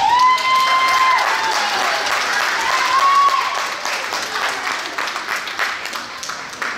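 Spectators clapping and cheering as a gymnast finishes her balance beam routine. There is a high held whoop at the start and another about three seconds in, and the clapping thins out over the last few seconds.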